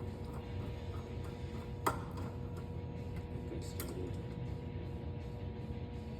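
Small clicks and taps of a GFCI outlet and its mounting screws being handled and fitted, with one sharper click about two seconds in, over a steady low hum.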